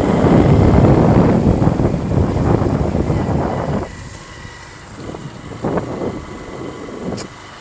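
Wind buffeting the microphone of a phone carried on a moving motorcycle, a loud rushing that drops sharply about four seconds in. A few faint knocks follow.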